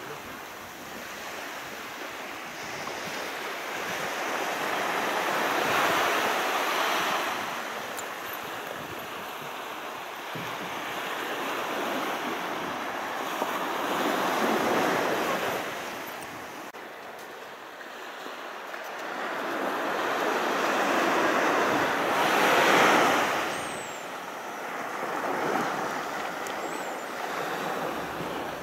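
Sea waves breaking and washing up the shore, the surf swelling and fading three times about eight seconds apart.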